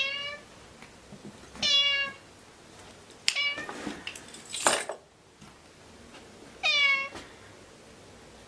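Domestic cat meowing four times, short calls a second or two apart, with a brief noisy sound between the third and fourth meows.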